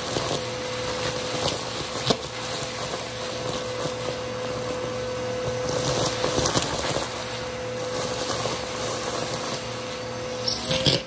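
Vacuum cleaner running with a crevice tool, a steady motor whine under it, sucking crunchy debris off a rug: crackling and rattling as the bits go up the wand, with a few sharp clicks.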